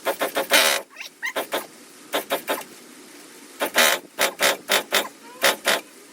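Repeated short rasping strokes in quick groups of three or four, about four a second, with pauses between the groups.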